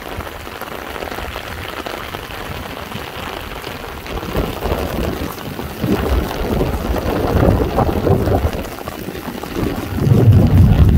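Heavy rain falling steadily. From about four seconds in, deep rumbling swells rise over the rain, loudest near the end.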